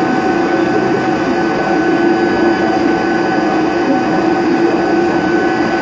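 XYZ 560HD CNC vertical machining centre roughing aluminium at high speed with a WNT CircleLine DLC-coated end mill: a steady whine of several held pitches over a constant rush of cutting noise, with no break.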